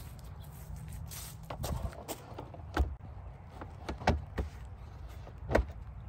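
Several sharp knocks and clacks, the loudest about three seconds in, about four seconds in and near the end, over a low steady rumble.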